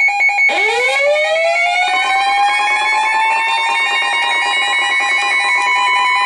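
Emergency alert tone: a loud pulsing beep, about four beeps a second. About half a second in, a siren begins winding up from a low pitch and levels off near its top.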